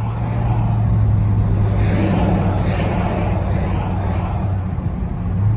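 A motor vehicle running steadily, with a constant low hum over road and engine noise.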